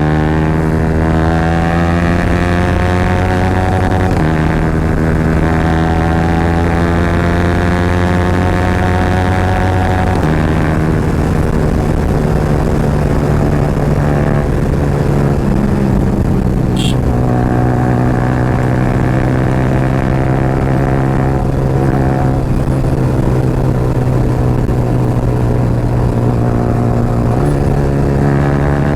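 Yamaha R15 motorcycle's single-cylinder engine running hard through an Akrapovic aftermarket exhaust at riding speed. Its note holds steady and high, stepping to a new pitch a few times as the rider changes gear, with a brief click past the middle.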